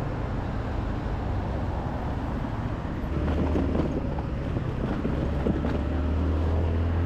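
Motor scooter under way: its engine gives a steady low hum under wind rush on the microphone, and the hum grows stronger from about three seconds in.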